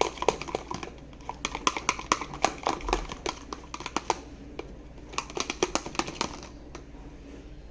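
A spoon stirring glue and food colouring in a small cup, clicking quickly and irregularly against the sides. The clicks thin out near the end.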